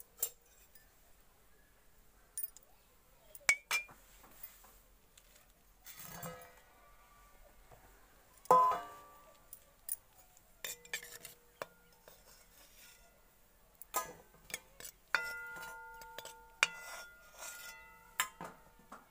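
Steel ladle knocking and scraping against a steel pot and a steel plate: a series of sharp clinks, a few leaving a brief metallic ring, as boiled potatoes are scooped out of the water and set down.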